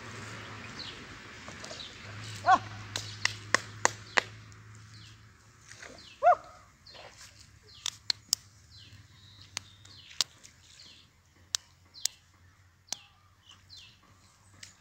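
Two short animal calls, the second the loudest, among many brief high chirps from birds and scattered sharp clicks.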